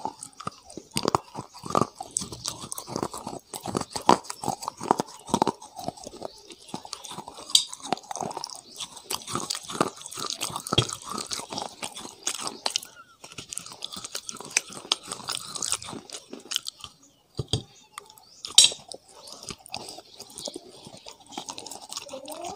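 A person biting and chewing crunchy food close to a clip-on microphone: a steady run of sharp, irregular crunches.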